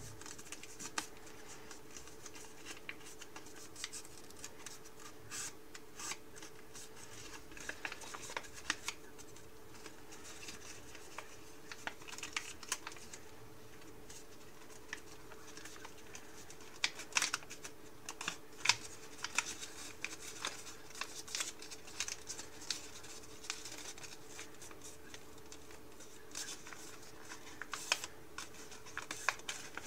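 A sheet of origami paper being folded and creased by hand: irregular crinkling and rustling crackles, thickest around the middle and again near the end, over a faint steady hum.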